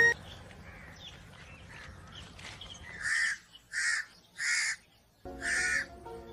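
A crow cawing: four short caws starting about three seconds in, spaced half a second to a second apart, over a faint background.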